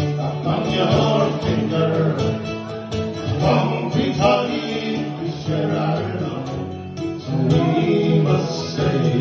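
Traditional folk song performed live: male voices singing to two acoustic guitars.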